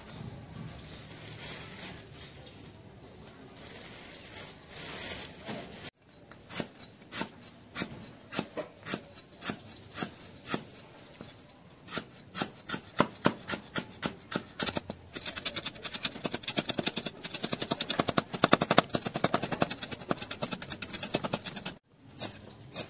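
A cleaver chopping lemongrass on a thick round wooden chopping block. After some soft rustling at first, single slicing strokes fall about once or twice a second, then speed up into fast, steady chopping of several strokes a second, the loudest part, as the lemongrass is minced fine.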